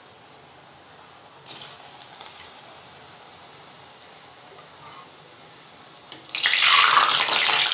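Lauki koftas deep-frying in hot oil in an iron kadhai: faint at first, then from about six seconds in a loud, dense sizzle as the oil runs very hot.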